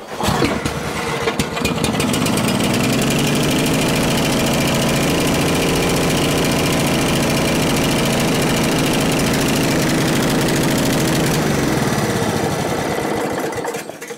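Bear Cat chipper shredder's Briggs & Stratton engine starting up, running steadily for about ten seconds, then winding down and stopping near the end. It is running rich on a freshly fitted aftermarket carburetor, which the owner judges from dark exhaust smoke.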